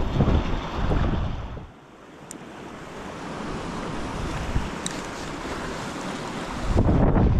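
Wind buffeting the microphone over the steady rush of river water. The gusts ease off about two seconds in and come back strongly near the end.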